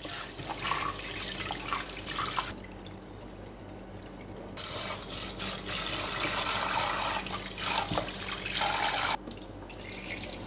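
Kitchen tap running into a stainless steel bowl of rice in the sink while a hand rubs the grains to wash them. The water cuts out about two and a half seconds in, comes back two seconds later, and stops suddenly near the end, when the cloudy rinse water is poured off into the sink.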